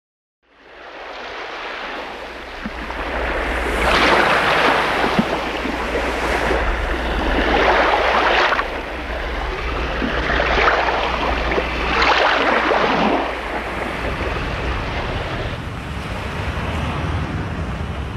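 Ocean surf washing onto a sandy beach. It fades in from silence about half a second in, then swells and ebbs as waves break every few seconds.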